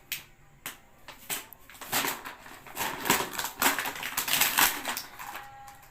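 Toy packaging being opened by hand: a few separate sharp clicks, then about three seconds of dense crinkling and crackling.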